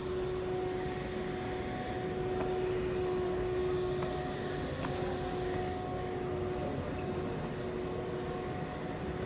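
Steady hall ambience: an even background drone with a faint held hum that breaks off a few times and fades out after about six and a half seconds, and a few faint ticks.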